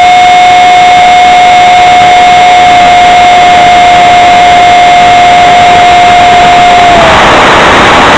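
Brushless 70mm electric ducted fan at full throttle, picked up by the aircraft's onboard microphone: a loud, steady, high whine over rushing noise. About seven seconds in, the whine slides down in pitch and gives way to loud rushing air noise.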